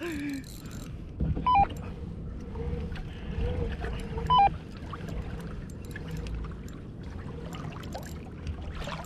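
Water and wind noise around a kayak while a hooked fish is fought on a bent spinning rod, with faint clicking from the reel being cranked. Two short two-note electronic beeps come about a second and a half in and again after about four and a half seconds.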